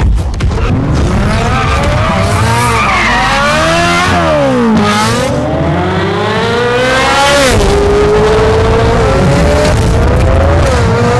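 Ferrari 458's V8 running through an Fi aftermarket exhaust, revving hard, its pitch climbing and then dropping sharply several times.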